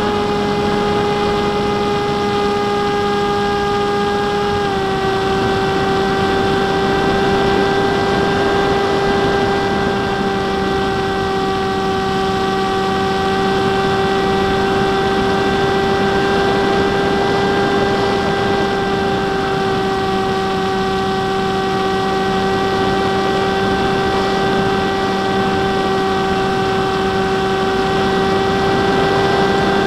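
Electric motor and propeller of an F-27 Stryker RC flying wing in flight, picked up by its onboard camera: a steady high whine over wind rush, the pitch dipping slightly about five seconds in.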